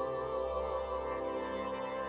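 Background music made of slow, held instrumental tones.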